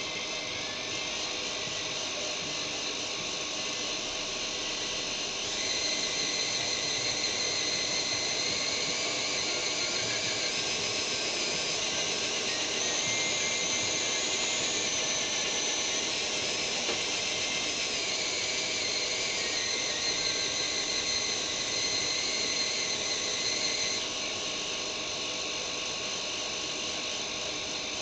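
Z scale model steam locomotive running on a roller test stand: a high-pitched whine from its tiny electric motor and gears over the rollers' whirr. The whine gets louder about five seconds in, climbs a little in pitch midway, and drops back about four seconds before the end.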